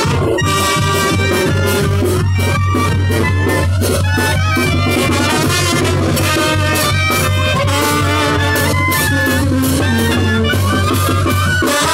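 Street wind band of clarinets, trumpets, trombone and sousaphone playing a loud, dense tune.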